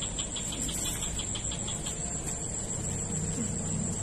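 Insects chirping in a rapid, even pulse, about six chirps a second, fading out about a second and a half in, over a steady high-pitched whine and a low rumble.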